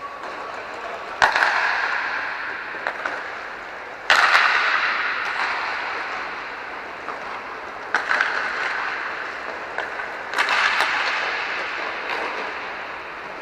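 Inline hockey stick-and-puck impacts: four sharp cracks a few seconds apart, each echoing away over about two seconds in the large arena, with smaller clicks between them. Underneath is the steady rolling noise of inline skate wheels on the rink floor.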